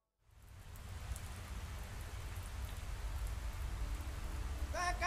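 Rain falling, fading in and growing steadily louder, with a low rumble underneath. A held musical tone comes in near the end.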